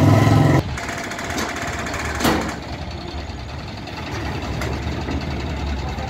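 Diesel engine of a mobile crane running steadily, with a single sharp metallic clank about two seconds in. It follows a loud low hum that cuts off abruptly in the first second.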